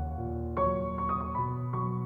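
Soft background piano music, gentle single notes over held chords.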